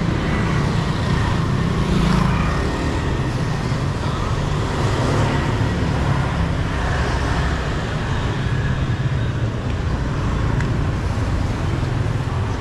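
Steady road traffic noise of a busy city street, a constant rumble of passing vehicles.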